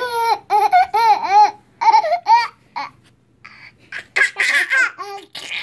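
A baby laughing in a string of short, high, repeated bursts, pausing for about a second partway through, then laughing again.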